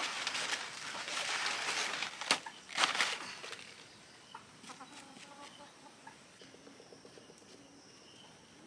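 Chickens clucking softly. Loud rustling noise covers the first three seconds or so, then dies down.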